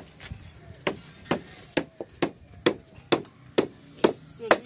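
Hammer striking wooden shuttering planks in a steady rhythm, about two blows a second, starting about a second in.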